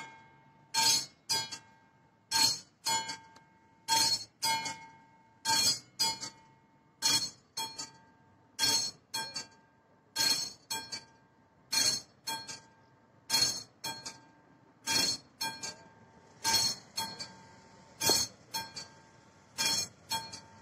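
Classic electromechanical level-crossing bell on a Czech AŽD 71 railway crossing, ringing in metallic double strikes repeated about every one and a half seconds. It is the crossing's warning, sounding while the red lights flash for an approaching train.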